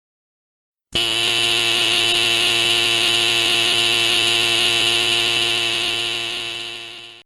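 A steady, harsh buzzing tone like an electric buzzer or alarm, starting about a second in, holding level for about five seconds, then fading out near the end.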